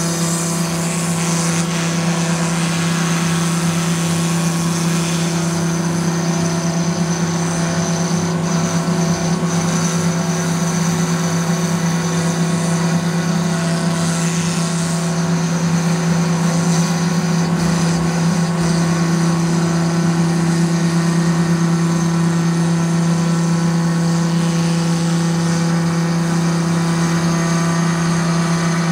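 CNC router spindle running steadily while its bit cuts a groove into a wooden door panel: a constant low hum with a rougher, shifting cutting noise above it.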